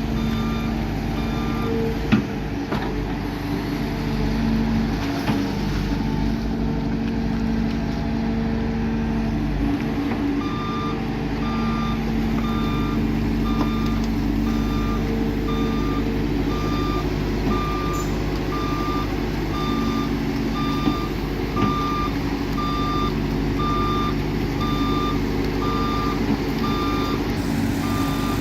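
A heavy diesel construction vehicle's engine running steadily, with a reversing alarm beeping about once a second. The alarm sounds briefly at the start, then comes back about a third of the way in and keeps going. A few dull knocks of machinery are mixed in.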